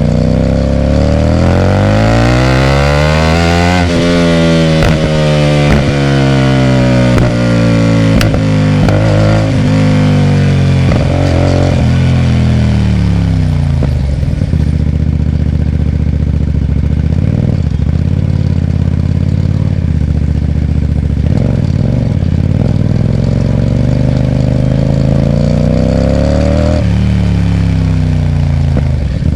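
Hyosung GT250R's V-twin running through a loud aftermarket Ixxile Racing exhaust. It revs up over the first few seconds, falls slowly as the throttle rolls off, holds a steady note through the middle, and climbs again near the end, with a few sharp clicks along the way.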